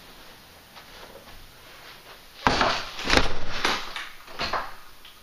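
Quiet room tone, then about halfway through a sudden run of four or five loud knocks and scuffs over about two seconds, dying away before the end.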